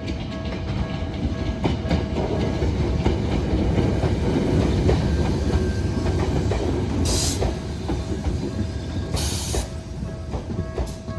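Toyohashi Railway Atsumi Line electric train passing over a level crossing, its wheels clattering on the rails with a heavy rumble that is loudest midway and then eases off. The crossing's warning bells keep ringing in a steady repeating pattern, and two brief high hisses come near the end.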